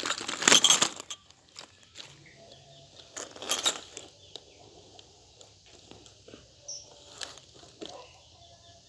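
Exaggerated coughing: a run of harsh coughs in the first second, then single coughs about three and a half seconds in and again near seven seconds, with faint clicks between.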